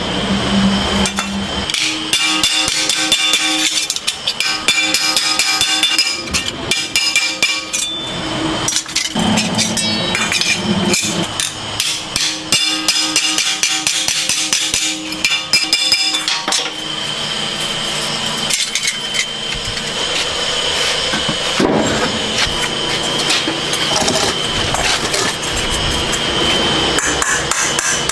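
Rapid, repeated hammer strikes, likely on metal, with background music.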